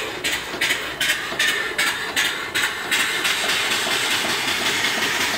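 Small horizontal steam engine puffing exhaust steam about two to three times a second, giving way about three seconds in to a steady hiss of escaping steam. The engine has not taken off on its start.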